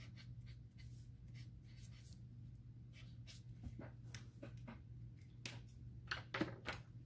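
Faint scratching strokes of a dry-erase marker writing letters: a scattered series of short scratches over a steady low hum.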